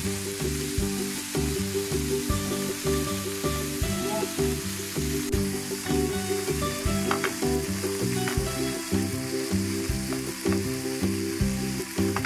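Shrimp frying in their olive-oil marinade in a nonstick pan, a steady sizzle, under background music with a steady, stepping bass line.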